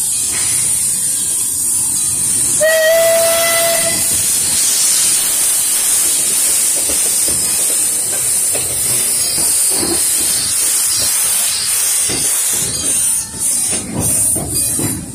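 Narrow-gauge steam locomotives passing close at walking pace, steam hissing loudly throughout, with one short steam-whistle blast about three seconds in. In the second half the passenger carriages roll past with irregular wheel knocks under the hiss.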